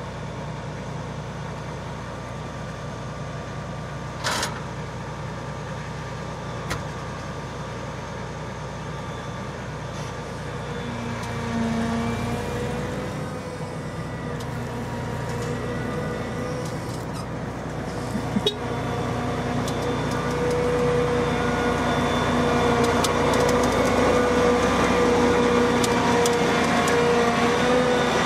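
Claas Lexion 760 TerraTrac combine harvester's diesel engine running as the machine drives closer, getting louder in the second half. A steady whine comes in about halfway. There is a brief knock about four seconds in.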